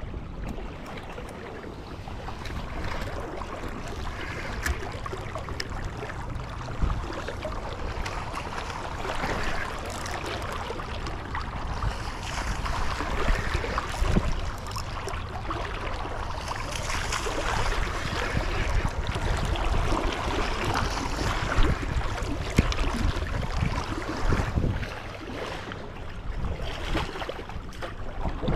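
River current rushing steadily, with wind gusting on the microphone in a low rumble.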